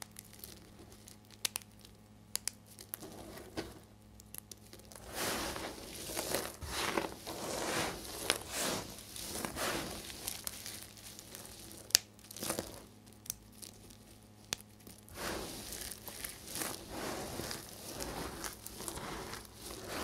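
Hands crumbling and digging through a heap of dry soap chips and shavings: dry crunching and rustling with sharp little cracks. Softer scattered crackles at first, then louder, fuller rustling and crunching from about five seconds in as the hands scoop into the pile, with one sharp snap about twelve seconds in.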